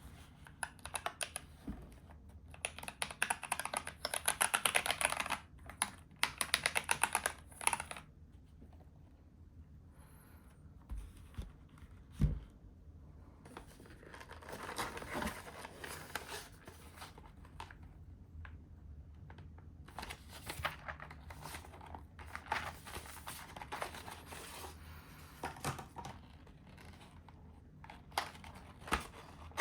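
Close handling of a new mechanical keyboard and its unboxing packaging: bursts of rapid clicking and crinkling, with a single knock about twelve seconds in.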